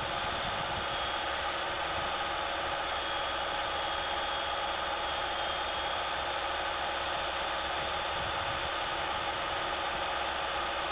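In-cabin sound of a Citroën Nemo's 1.3 Multijet four-cylinder turbodiesel cruising steadily at about 90 km/h in fifth gear, its engine drone mixed with tyre and road noise on a wet motorway.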